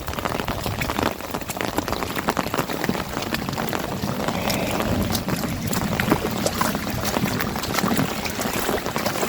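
Heavy rain falling steadily on an umbrella, a dense patter of close drop hits over a constant wash of rain and running water.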